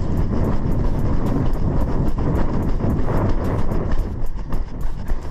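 Wind rumbling on the microphone of a running headcam, with the even tap of running footsteps on pavement, about three steps a second.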